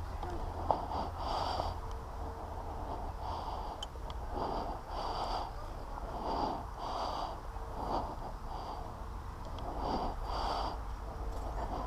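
A person breathing hard, in loud puffs about once a second, close to the microphone, with a single short click about a second in.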